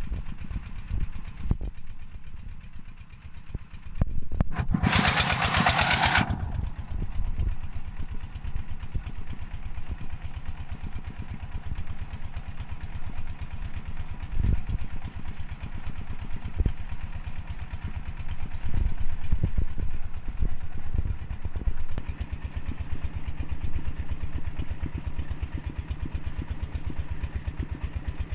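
Engine-driven red-brick moulding machine running, a fast, steady chugging throughout. About four and a half seconds in, a loud rushing noise lasts under two seconds.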